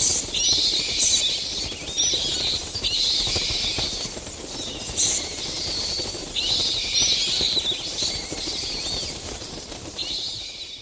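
Bats squeaking and wings flapping, a spooky sound effect: repeated short high chirps over a low rumble, fading out near the end.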